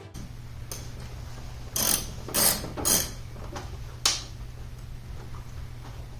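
Short clicking, rattling noises of hand work on a car's interior parts, four times in a couple of seconds, over a steady low hum.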